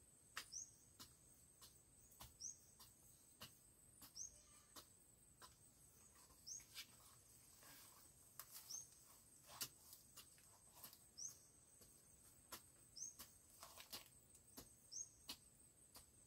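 Faint rural background: a short high chirp repeating roughly once a second, typical of a small bird, over a steady high insect drone, with scattered sharp soft clicks.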